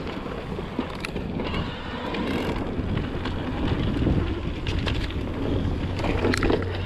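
Wind on the microphone and the rumble of an e-mountain bike rolling over a dirt trail, with scattered clicks and rattles from the bike over bumps.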